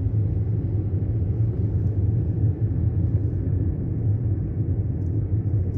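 Car driving at steady speed, heard from inside the cabin: a steady low rumble of road and engine noise.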